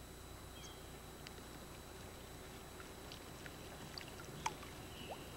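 Faint ambience on the lake: a soft, steady wash of water lapping, with a few scattered small clicks and a couple of faint brief chirps.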